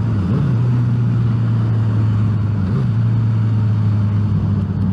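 Motorcycle engine running steadily under way, heard through a microphone inside the helmet's cheek pad, with wind noise over it. The engine pitch dips briefly twice, once near the start and once about three seconds in.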